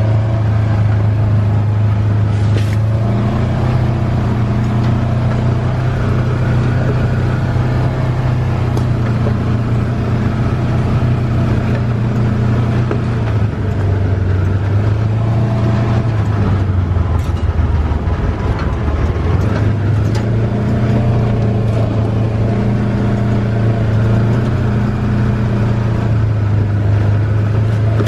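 Polaris Ranger side-by-side's engine running steadily as it drives along a dirt trail. The engine note drops for a couple of seconds about two-thirds through, then picks back up.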